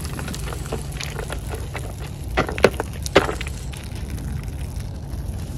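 Soaked split peas tipped from a plastic bucket into a plastic colander, their soaking water draining through and splashing onto the ground. Small clicks throughout, with a few sharper knocks around the middle.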